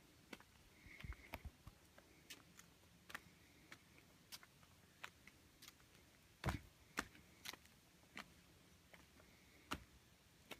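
Near silence broken by faint sharp taps and clicks, roughly one every half second to a second, with a louder knock about six and a half seconds in: the footsteps and phone-handling noise of someone walking on stone while filming.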